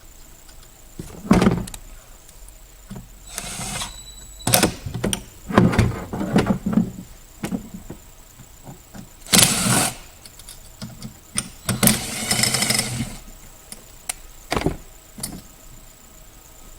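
Hand tools and metal parts being handled while bolts are fitted: a string of separate clunks, scrapes and rattles, with a longer scraping stretch about halfway and a longer rattling one near the end.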